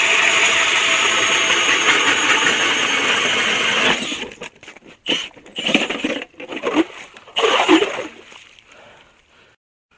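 Drill-powered ice auger running at full speed, a loud steady motor whine with the hiss of the blades cutting through thick ice. It stops about four seconds in, followed by a few seconds of irregular scraping and knocking.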